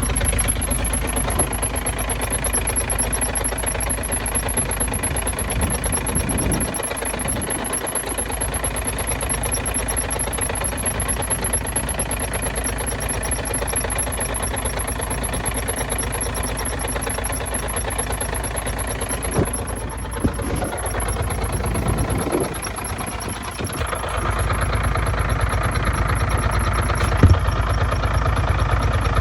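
Truck diesel engine idling steadily, with a few brief knocks of handling noise.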